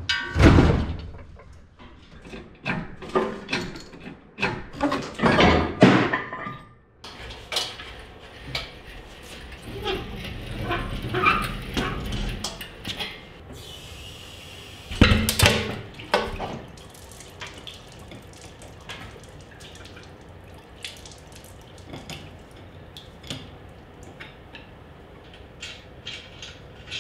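Irregular metal clanks and knocks from a shop engine hoist and the Humvee engine hanging from it as they are worked and rolled across the floor. The knocks are thickest in the first seven seconds, then a brief hiss comes just before one loud clank about fifteen seconds in, followed by lighter scattered clicks.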